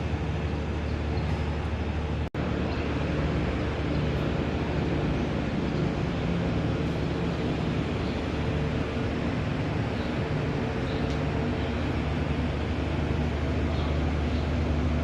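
A large engine running steadily: a constant low, droning hum with a layered pitch, briefly cutting out about two seconds in.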